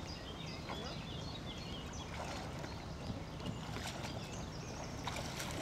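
Light water splashing from a person swimming in a life jacket, a few small splashes over a steady low outdoor rumble.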